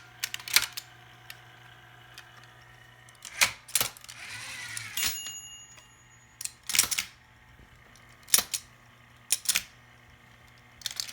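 A 1960s electromechanical typewriter with its main motor humming steadily, while its mechanism gives sharp clacks every second or so, some in quick pairs.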